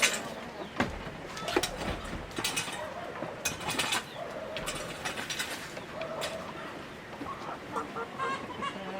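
Chickens clucking amid irregular clicks, knocks and rattles of handling, with a run of quick clucks near the end.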